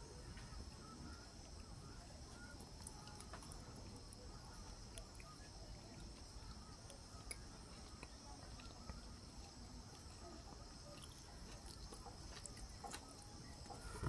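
Faint outdoor ambience: steady high-pitched insect chirring, with faint scattered bird chirps and a few small clicks.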